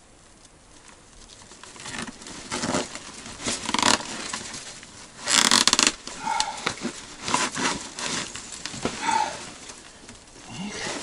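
Rope and a bundle of twigs being handled while a knot is tied round the head of a homemade broom. After about two seconds of quiet comes a run of irregular rustles and scrapes, the loudest about halfway through.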